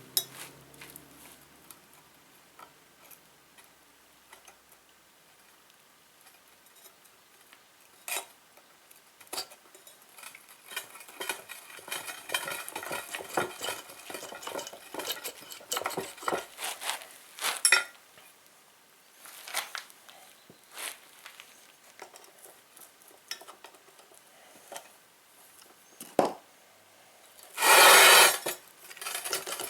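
Steel parts of a hydraulic bottle jack clinking, tapping and scraping as it is put back together by hand after new rubber seals are fitted, with a busy run of small metallic clinks in the middle and one loud, brief burst of noise near the end.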